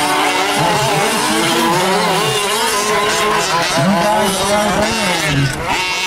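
Several gas-powered 1/5-scale RC off-road trucks racing, their small two-stroke engines buzzing and revving up and down over one another.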